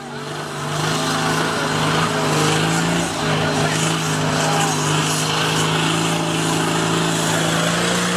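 An off-road 4x4 vehicle's engine running at steady, held revs, its pitch nearly level and edging slightly higher toward the end.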